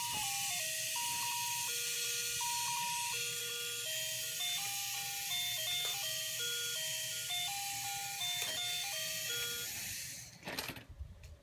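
Baby's electronic musical toy playing a simple beeping melody, one plain note at a time over a faint hiss. The tune stops near the end, followed by a brief clatter.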